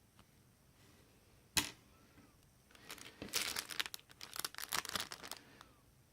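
A single sharp tap about a second and a half in, then a few seconds of crinkling, rustling handling noise, as of something being handled in crinkly packaging.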